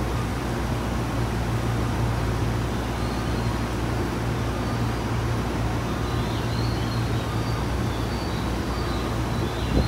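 Steady interior noise of a Tobu 30000 series commuter train car: a low hum and rumble, with faint warbling high tones above it.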